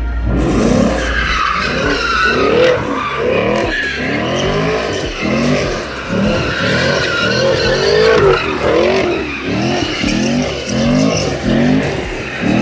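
A Chevrolet Camaro doing donuts: its engine revs up and down in quick repeated surges while the rear tyres squeal steadily, skidding around on the pavement.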